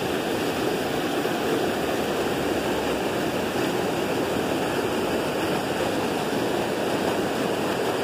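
Shallow river running over a small rocky rapid: a steady rush of water.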